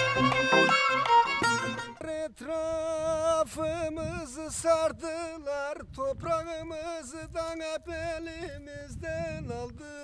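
Turkish folk music: a string ensemble led by a violin for about two seconds, then a single melodic line that wavers with heavy vibrato and bends in pitch, in phrases of a second or two, stopping abruptly at the end.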